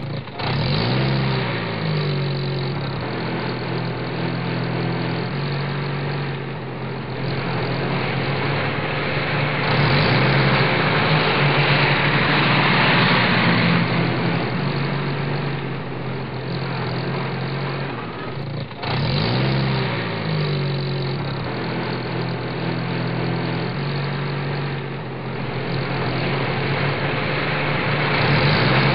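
Motor vehicle engine running steadily, with a rev about a second in and another at about nineteen seconds, its pitch stepping up and down at times.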